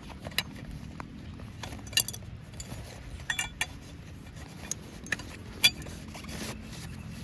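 A handful of sharp, scattered clinks and knocks of camp kitchenware, with the two loudest, about two seconds in and past the middle, ringing briefly.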